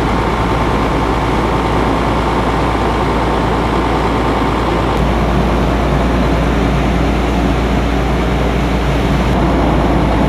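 Large truck driving steadily through floodwater, its engine running under a constant, unbroken noise with a deep rumble beneath.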